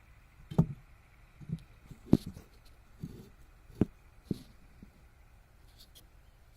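A run of about seven irregular knocks and thumps over a few seconds, the second one in the loudest, over a faint low hum.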